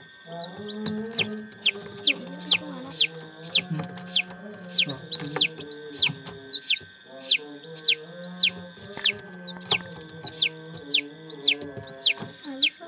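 Newly hatched domestic chick peeping in an egg incubator: loud, high peeps repeated evenly about twice a second, each one a quick arch that slides down in pitch.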